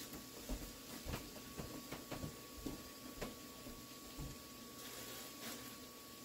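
Cabbage and vegetables sautéing in a frying pan: a faint sizzle with irregular small pops and crackles.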